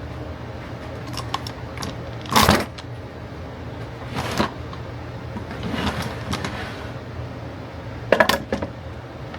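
Workshop handling noises: a few short clatters and knocks of objects being picked up and set down on the bench, the loudest about two and a half seconds in and again about eight seconds in, over a steady low hum.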